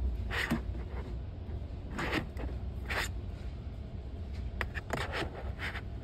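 Double-wall tumblers with plastic lids being handled on a cardboard shelf display: several short scrapes and rubs as they are picked up and set back, over a low steady hum.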